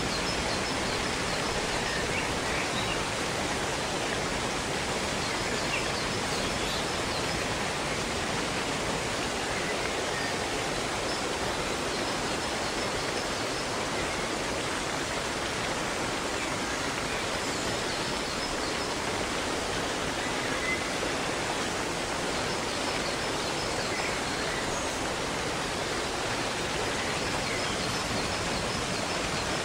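Waterfall rushing in a steady, even stream of water noise, with faint bird chirps here and there.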